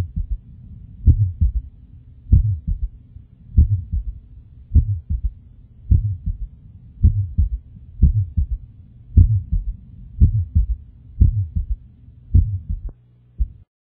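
Recorded heart sounds demonstrating an innocent murmur with a third heart sound (S3): a slow, regular heartbeat of about one beat a second, each beat a thud followed by softer sounds, over a steady low hum. It stops near the end.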